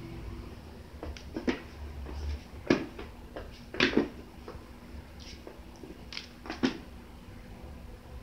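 Kittens' paws thumping on a wooden floor as they jump at and land after a wand toy: a string of irregular thuds, four louder than the rest.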